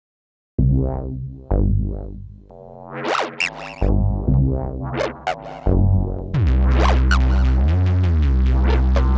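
Electronic music with heavy synth bass notes and drum-machine hits, starting suddenly about half a second in after digital silence; a steady driving beat comes in about six seconds in.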